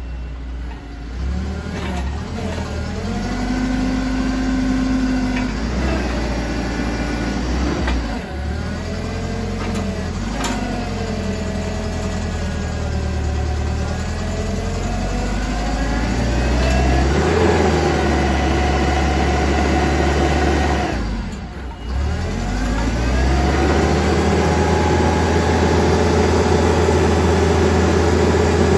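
Forklift's Nissan K25 four-cylinder engine running, revving up and down again and again as the paper roll clamp's hydraulics are worked. The revs drop briefly about three quarters through, then are held high until the end.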